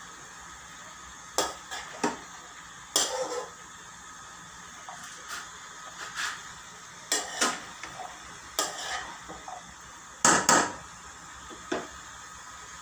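Metal spoon scraping and clacking against a non-stick frying pan as chopped vegetables are stirred. The clatters come in irregular bursts every second or so, the loudest a quick double clack near the end, over a steady hiss.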